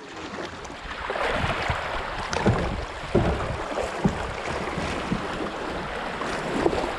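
Creek water rushing and splashing through a shallow riffle around a kayak's bow, growing louder about a second in, with a few short low knocks of water or paddle against the hull.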